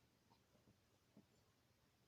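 Near silence: room tone, with two faint small knocks, the clearer one a little past the middle.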